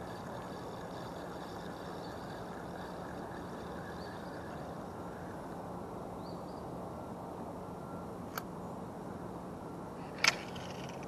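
Spinning fishing reel being handled: a sharp click about eight seconds in and a louder double click near the end, over a steady low rushing background with a faint hum.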